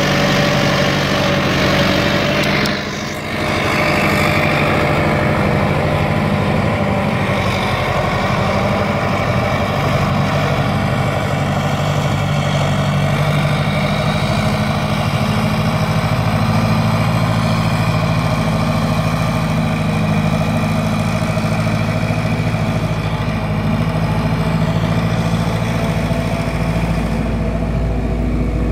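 Caterpillar 980B wheel loader's V8 diesel engine running steadily, with a short dip in loudness about three seconds in.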